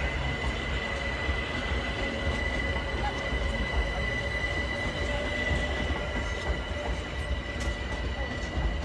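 London Overground Class 378 electric multiple unit rolling slowly past, a steady low rumble under a steady high-pitched wheel squeal.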